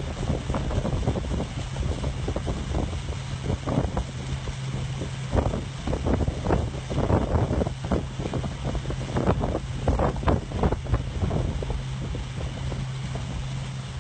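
Motorboat engine running at a steady low hum, with wind buffeting the microphone in irregular gusts as the boat moves.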